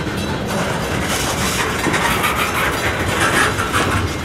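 Freight cars (covered hoppers, then gondolas) rolling past: the steady rumble of steel wheels on the rails, with repeated irregular clicks as the trucks go over the track.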